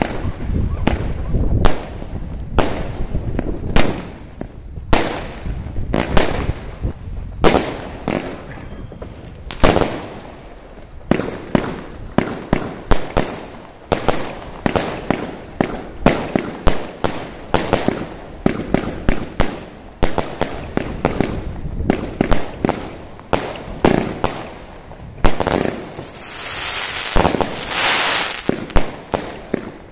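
Zena Kracherblitz 130-shot 25 mm compound fireworks cake firing, one sharp shot and burst after another, about one or two a second. Crackling stars fizz after the bursts, and a dense spell of crackling comes a few seconds before the end.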